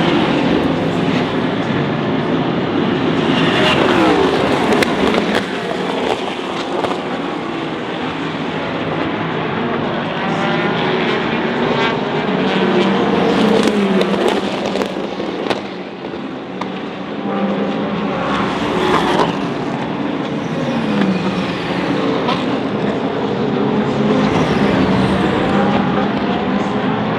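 Sports-prototype and GT race cars passing one after another at racing speed. Each engine's pitch drops as it goes by, several times in a row, over the continuous noise of other cars on track.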